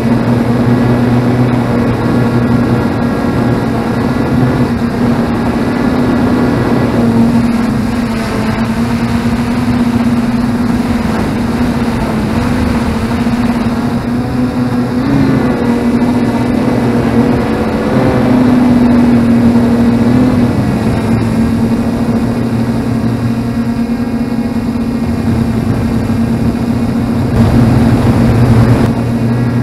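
F450 quadcopter's brushless motors and propellers droning steadily as picked up by the onboard camera, a low hum with a higher whine above it that shifts slightly in pitch with the throttle. It swells louder about two-thirds through and again near the end.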